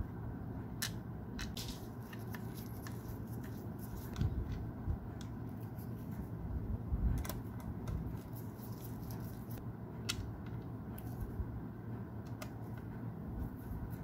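Small screws being driven with a hand screwdriver to fasten a 2.5-inch SATA SSD into a desktop PC case's drive bay: scattered light clicks and scrapes of metal on metal, over a steady low hum.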